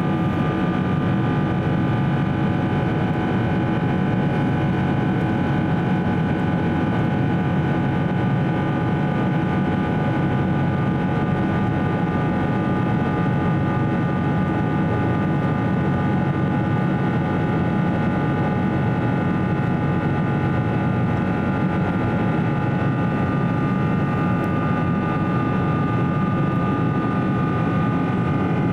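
Steady cabin noise inside a Boeing 777-300ER climbing after takeoff: the rush of its GE90 turbofan engines and the airflow past the fuselage, with several steady high tones over it.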